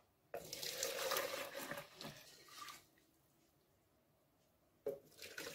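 Demi-glace sauce poured from a stainless steel pan into a plastic measuring jug, the stream splashing into the jug. The pour stops after about three seconds and starts again near the end.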